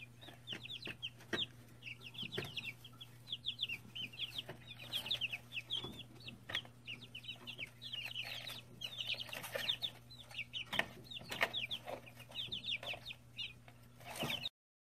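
Three-week-old chicks peeping, constant runs of short, high, falling peeps, with scattered soft clicks and a steady low hum underneath.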